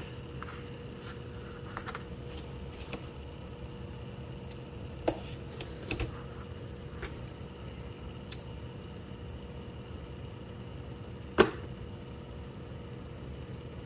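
Paracord being handled on a cardboard work surface: a few scattered faint clicks and taps over a steady low hum, with one sharper click late on as the loudest sound.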